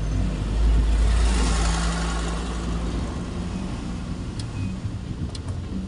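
A large truck passing close alongside the car, heard from inside the cabin: a low rumble with a hum that swells about a second in and fades over the next two seconds, leaving the steady running of the car and traffic.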